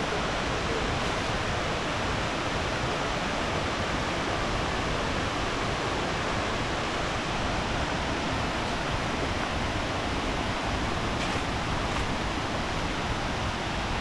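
A waterfall's water pouring down in a steady, even rush.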